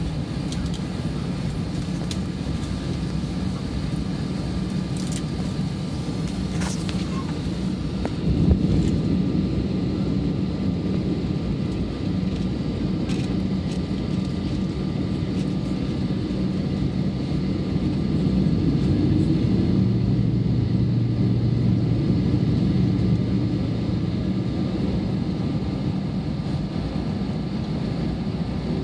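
Steady low drone of an Airbus A320's jet engines heard from inside the cabin as the airliner taxis. It swells briefly about eight seconds in and again around twenty seconds, where a low hum comes in, and a few light clicks sound over it.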